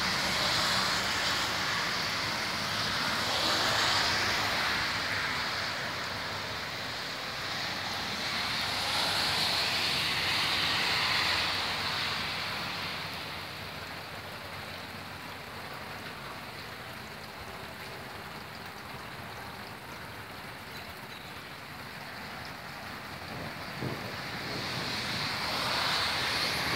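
Storm wind and heavy rain rushing, with gusts that swell and ease: loud for the first dozen seconds, dropping off, then building again near the end.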